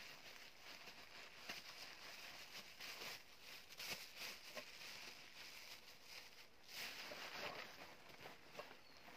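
Faint rustling and crinkling as hands rummage in a fabric backpack and handle a plastic bag, with scattered small clicks, the loudest a little before halfway and again about two thirds through.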